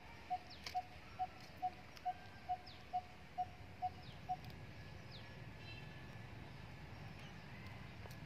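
A bird calling a steady run of short, clear notes on one pitch, about two a second, which stops about four seconds in; faint high chirps of other birds follow over a quiet outdoor background.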